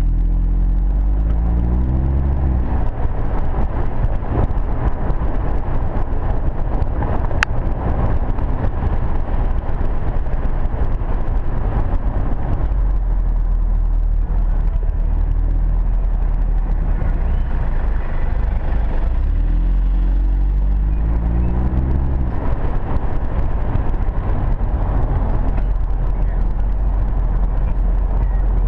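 Audi TT-S's turbocharged four-cylinder engine and exhaust on the move, climbing in pitch as the car accelerates at the start and again about twenty seconds in, with steady road and wind noise between. A single sharp tick sounds about seven seconds in.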